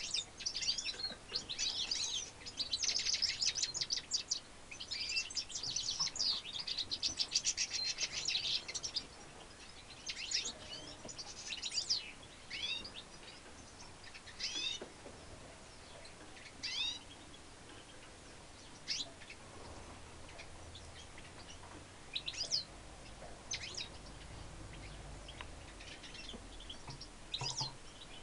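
Goldfinch × redpoll hybrid finch singing. For about the first nine seconds it gives a fast, high twittering song with buzzy trills, then it falls to scattered single chirps every second or two.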